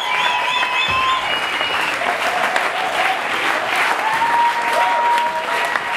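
Audience applauding steadily, with long, high, held whistles and cheers rising over the clapping.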